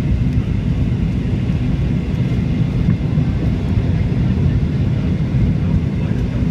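Cabin noise of a jet airliner at takeoff power: a loud, steady, dense low rumble from the engines and the takeoff roll as the plane lifts off the runway.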